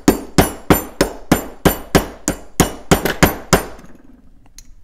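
A ball-peen hammer tapping a new ball bearing into an electric motor's end cap: about a dozen sharp metallic strikes, roughly three a second, which stop near the end once the bearing is seated.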